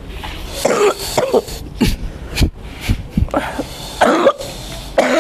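A person coughing and clearing the throat in several separate bouts; the title describes the patient's cough as lasting over ten years.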